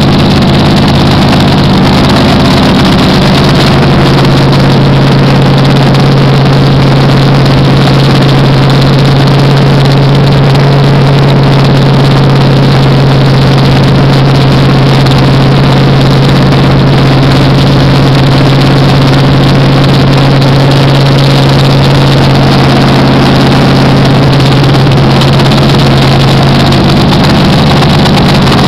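Carbureted V8 engine on an engine stand running steadily at a raised, constant speed through open headers while its new camshaft is broken in.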